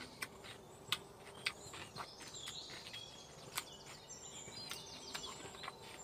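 Eating sounds: a handful of sharp clicks and smacks from chewing and from chopsticks and spoon on a plate. Birds chirp now and then over a steady outdoor background.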